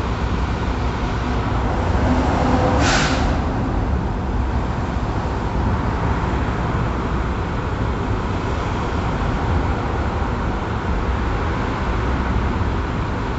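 Steady rumble of vehicle engines idling in stopped highway traffic, with one short hiss about three seconds in.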